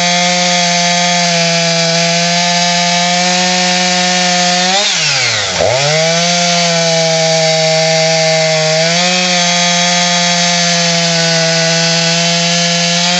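Husqvarna 346XP two-stroke chainsaw engine running at high revs. About five seconds in the revs drop sharply and climb straight back, with a smaller dip and rise near nine seconds.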